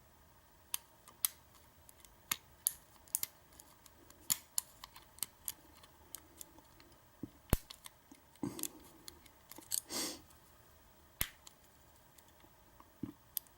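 Lock pick and tension wrench working the pins of a Schlage deadbolt cylinder during single-pin picking: irregular small metallic clicks and ticks, with a few brief scrapes.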